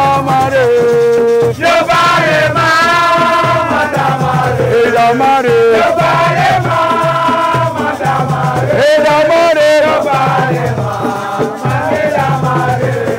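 Singing in a chanting style over music with a steady rhythmic beat.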